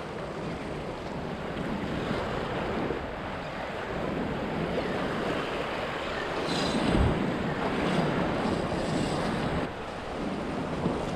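Surf washing against a rock jetty, with wind buffeting the microphone; the wash swells louder in the middle, with a heavier thump about seven seconds in.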